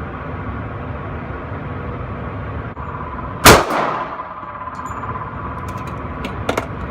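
A single .45 pistol shot about halfway through, very loud with a short ringing echo, over a steady background hum; a few light clicks follow near the end.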